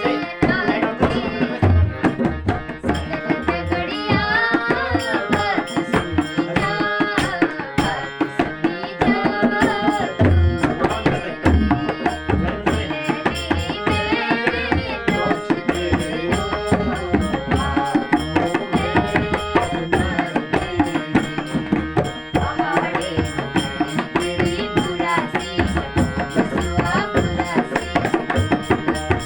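Kumaoni folk song music: a steady, even hand-drum rhythm under a flowing melodic line.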